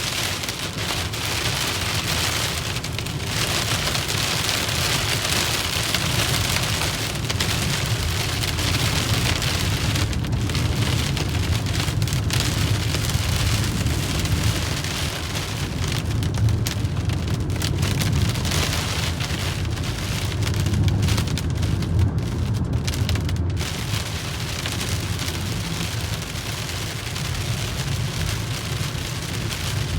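Steady rain drumming on a moving car, with a low rumble of the car running underneath.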